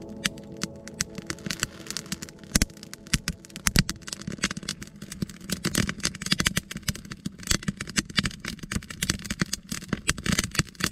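Campfire of freshly lit split-wood kindling crackling, with irregular sharp snaps and pops that come more often after a few seconds as the flames take hold.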